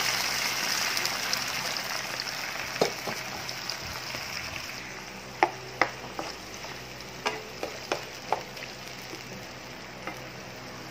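Spinach stems, onion and garlic sizzling in a nonstick pan with hot water added, the hiss slowly dying down. A wooden spatula stirs and knocks against the pan several times in the middle of the stretch.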